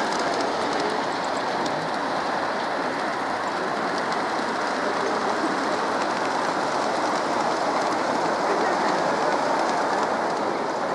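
Garden-scale model trains rolling along their track: a steady rushing rumble with a few faint clicks.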